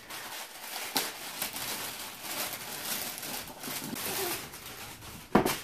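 Plastic mailer bag rustling and crinkling as it is torn open and a toy box is pulled out, with a sharp click about a second in and a loud knock near the end.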